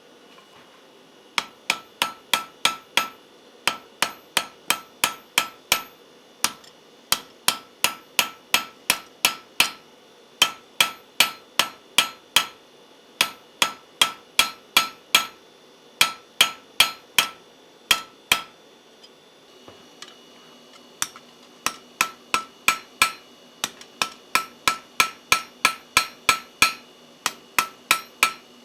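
Hand hammer striking hot iron on an anvil in quick runs of about five to eight ringing blows, roughly three a second, with short pauses between runs and a longer pause a little past the middle. It is the hammering of a forge weld, joining leaves to an iron rose's stem.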